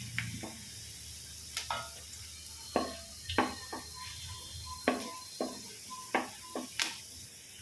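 Chopped ginger, garlic and dried red chillies frying in coconut oil in an uruli with a faint steady sizzle, while a spoon clinks and scrapes against the pan about ten times, irregularly, as they are stirred.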